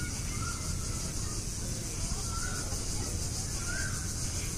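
A bird giving three short chirps, spaced a second or more apart, over a steady low rumble and a steady high hiss of outdoor ambience.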